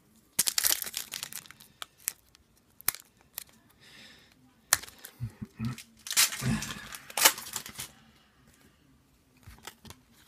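A hockey card pack being torn open and its wrapper crinkled by hand, in several short bursts of tearing and rustling, the loudest about six to seven and a half seconds in.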